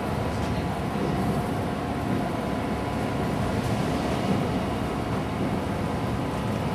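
Steady running noise inside a JNR 169 series electric train car at speed: an even low rumble of the wheels on the rails, with a faint hum.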